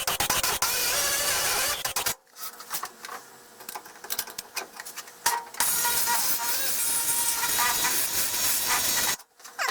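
Welder laying short beads on car body sheet metal, a dense crackling hiss. The first run stops after about two seconds, and a second run starts a little past halfway and cuts off near the end.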